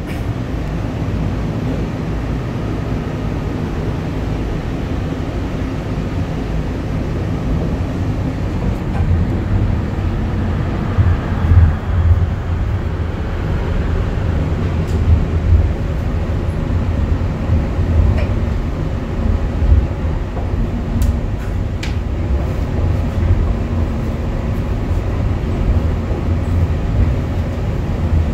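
Airport people-mover train running on an elevated guideway, heard from inside the car: a steady rumble with a deep hum that grows louder and swells from about a third of the way in, with a few light clicks.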